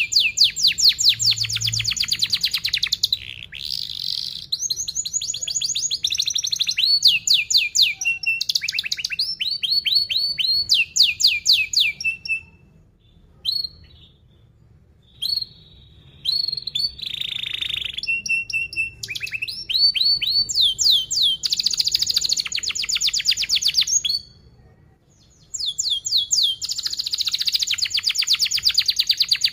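Young domestic canary singing fast rolling trills of rapidly repeated high chirps, phrase after phrase. There are two short pauses, one near the middle and one about four-fifths of the way through.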